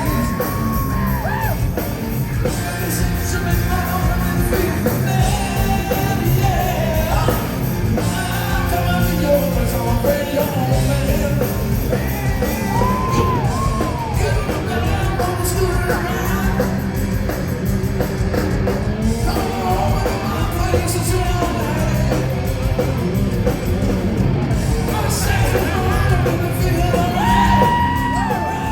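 Live hard-rock band playing, with a singer's voice, heard through the echo of a large hall.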